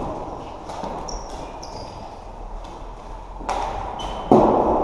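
Floorball play echoing in a sports hall: sharp clacks of sticks and the plastic ball, a few short high sneaker squeaks on the court floor just after a second in, and a loud bang near the end.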